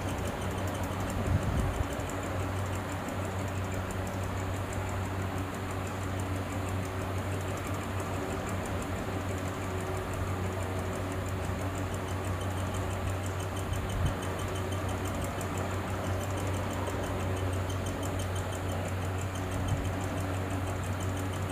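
Steady low hum over an even hiss, with a few soft bumps scattered through.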